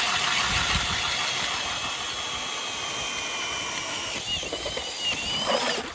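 Cordless drill driving an ice auger with an extension through thick late-season lake ice: a steady motor whine under load, its pitch sinking slowly and wavering near the end. The drill stops abruptly just before the end.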